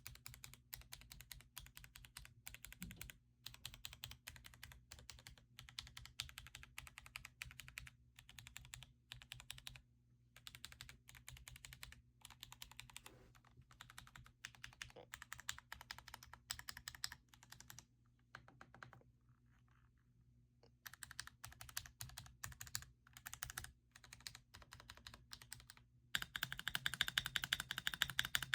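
Typing on a Royal Kludge M75 mechanical keyboard with brown (tactile) switches: a dense, irregular run of key clicks. It pauses for a couple of seconds about two-thirds of the way through, and turns louder and faster near the end.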